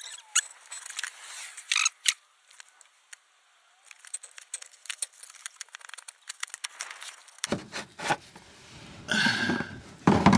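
Light clicking and crackling of a plastic gear-oil bottle being handled and squeezed, with louder rustling near the end.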